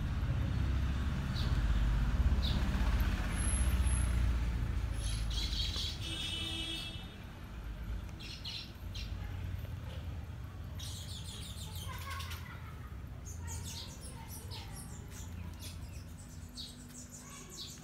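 Small birds chirping on and off over a low rumble that is loudest for the first six seconds and then fades.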